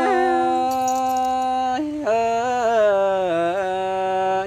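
Tai Dam folk singing by a man and a woman: long, drawn-out sung notes with a slow wavering pitch. They break off briefly about two seconds in, then a phrase slides and falls in pitch.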